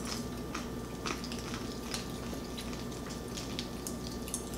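Lychee-flavoured popping candy crackling in people's mouths, a light scattering of small pops and snaps.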